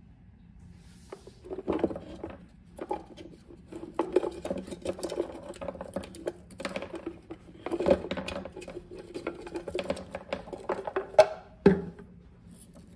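Rolls of masking tape rattling around inside a clear plastic jar and clattering out onto a wooden tabletop as the jar is tipped: a busy run of irregular knocks, ending with two sharper knocks near the end.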